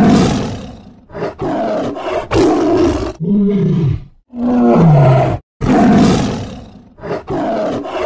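Tiger giving a rapid series of loud growls and roars, most under a second long, with two longer calls falling in pitch around the middle.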